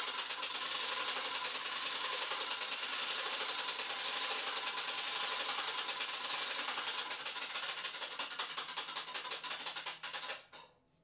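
Hand crank of a Silbra UP Cargo lifting hand truck being wound, clicking rapidly and steadily as it winches the load platform up the mast. The clicking stops abruptly near the end.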